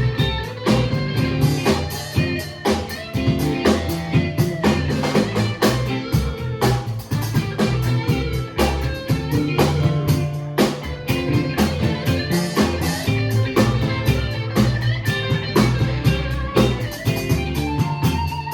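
Live rock band playing an instrumental break: electric guitar over bass and a drum kit, with no singing.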